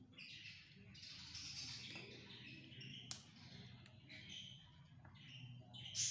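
Brass tap spindles clicking against each other in a hand, a sharp click about three seconds in and another near the end, over faint high-pitched background noise.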